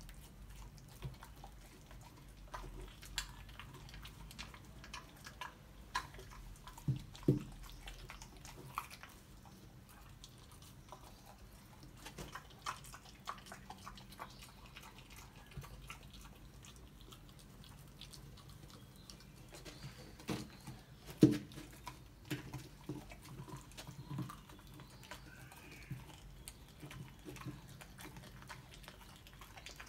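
A puppy chewing frozen raw chicken bones: irregular short clicks and crunches, with a couple of louder cracks about seven seconds in and again around twenty-one seconds.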